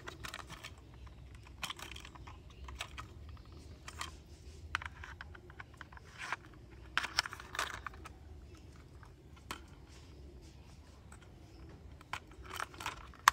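Light plastic clicks and rattles, scattered and irregular, as plastic toy car wheels are handled and pushed onto their metal axle rods.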